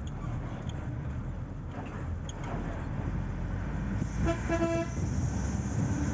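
A vehicle horn toots once for about half a second, about four seconds in, over a steady low rumble.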